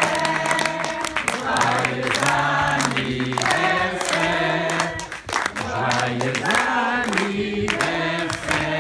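A crowd of voices singing a birthday song together in chorus, with scattered clapping along.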